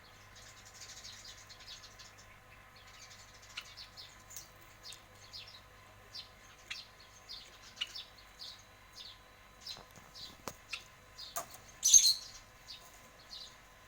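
Lovebird giving short, sharp chirps about twice a second, with a few sharp clicks around ten seconds in and one loud, harsh call about twelve seconds in.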